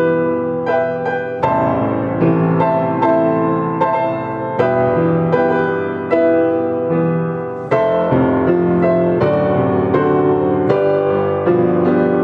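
Instrumental keyboard music, most like a piano, playing gentle struck notes and chords with no singing: the song's accompaniment going on after the vocal has ended.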